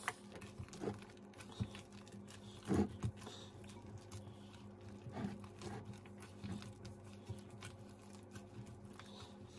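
Gloved hand kneading soft, buttery bread dough in a glass bowl: quiet sticky squishing and plastic glove crinkling, with a few soft thuds, over a faint steady hum.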